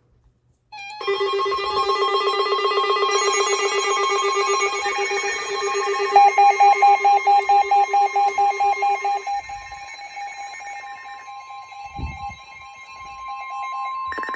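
Electronic emergency-alert tones ahead of a flood warning: several steady tones sound together from about a second in, pulse rapidly for a few seconds in the middle, then thin to a single steady tone, with a new buzzing tone starting just before the end.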